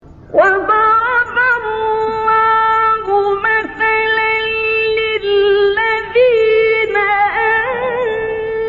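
Quran recitation by a male reciter in the melodic mujawwad style: one voice chanting with long held notes and wavering, ornamented turns. The voice comes in about half a second in.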